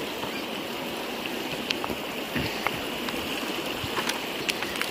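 Shallow river rushing steadily over rocks, with scattered light clicks of footsteps on loose flat stones.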